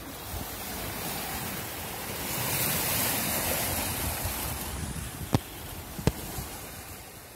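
Sea water rushing and splashing along a sailing yacht's hull as it moves under sail, with wind blowing across the microphone. Two sharp knocks come about five and six seconds in.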